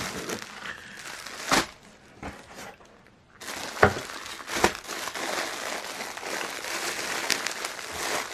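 Packaging of a mailed parcel crinkling and rustling as it is handled and opened, with a few sharp snaps and a brief lull partway through.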